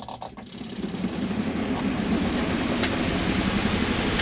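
Spin-dryer motor of a compact twin-tub portable washing machine starting a spin cycle. The basket spins up, getting louder over the first couple of seconds, then runs at a steady fast whirr.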